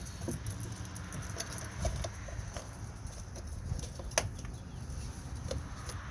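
Plastic clicks and knocks from an engine air filter housing cover being worked back into place by hand, with one sharp click about four seconds in.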